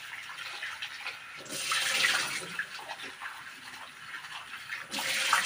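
Running water from a tap splashing into a sink, growing louder about a second and a half in and again near the end.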